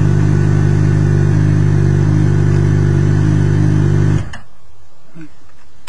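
2014 Honda CBR600RR's 599 cc inline-four, fitted with a Yoshimura slip-on exhaust, idling steadily, then cut off suddenly about four seconds in.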